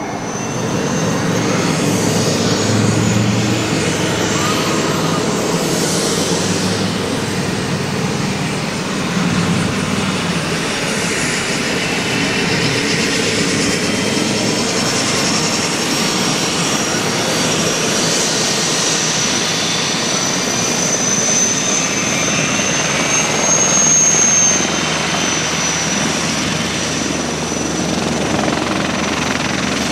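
Military turbine helicopter running close by: steady rotor noise under a high turbine whine. The whine rises slightly and is loudest about three-quarters of the way through.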